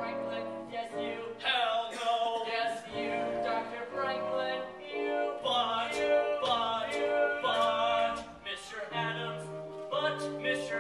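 Young male voices singing a show tune together in phrases with held notes.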